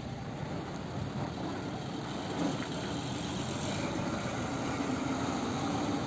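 Engine of a heavy three-axle flatbed truck running as it pulls across and drives past, growing slightly louder.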